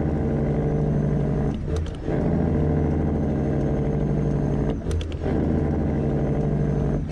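Straight-piped diesel engine of a Freightliner Classic XL semi truck running steadily, with two brief dips in level about one and a half and five seconds in.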